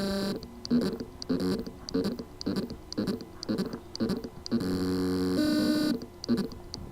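WD Caviar Green WD10EACS hard drive with loose spindle-motor contacts: the motor tries to spin but cannot reach full speed. It gives a rhythmic electronic buzzing chirp about two to three times a second, with a longer steady buzz at the start and another lasting about a second and a half past the middle.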